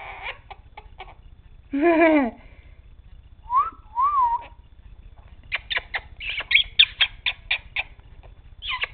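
Quaker parrot (monk parakeet) vocalising: a short call about two seconds in and a couple of whistled notes around four seconds, then a rapid run of short, sharp chirps and clicks.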